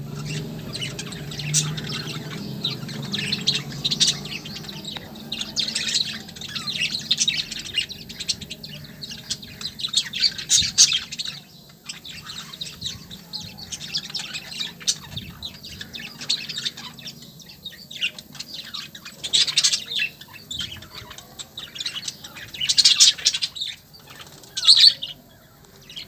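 A flock of budgerigars chirping and chattering, with several louder bursts of calls, the loudest near the end.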